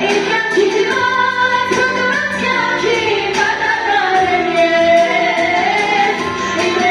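A young woman singing an Armenian song into a handheld microphone over a backing track, with a long wavering held note in the middle.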